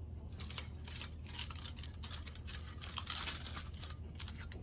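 Irregular crinkling and crackling of a thin, crisp sheet being handled close to the microphone, thickest about three seconds in.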